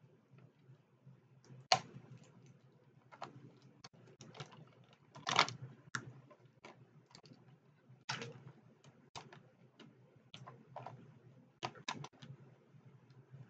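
Crawfish shells cracking and snapping as they are peeled apart by hand, in irregular sharp clicks and cracks. The loudest crack comes about five seconds in.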